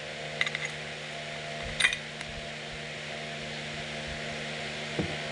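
A steady low hum with a few light clicks and taps, about half a second in and again near two seconds, from parts being handled on the bench.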